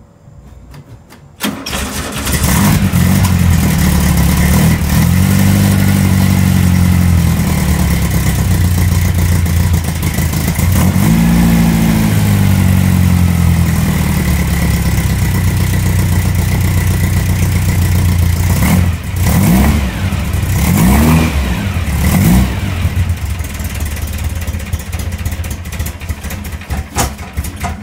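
A freshly built 2054cc air-cooled VW flat-four (74 mm stroker) catches on a cold start after a brief crank. It then runs fast, with the revs rising and falling several times and a run of quick blips later on. It runs rougher and dies right at the end, which the builder puts down to vice grips left clamping the fuel line.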